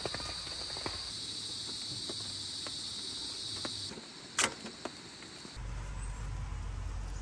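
Insects trilling steadily, with scattered light clicks. The trill cuts off about four to five seconds in, and a low steady hum takes over for the rest.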